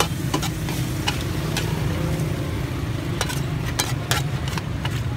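Metal ladle clanking and scraping against a steel wok during stir-frying, in irregular sharp strikes that come faster in the second half, with a steady low rumble of traffic underneath.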